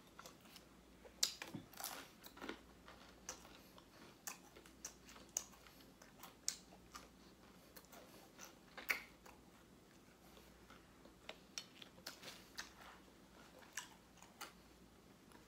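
Close-up chewing of crispy fried chicken: irregular soft crunches and wet mouth clicks, with a few sharper crunches.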